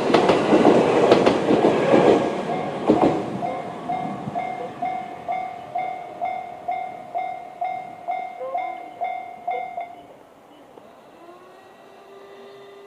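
A JR East 701-series electric train passing over a level crossing, its wheels clicking over the rail joints before its noise fades away. The crossing's electronic alarm, the JR standard tone, rings on about twice a second and stops about ten seconds in; a faint hum rises and falls near the end.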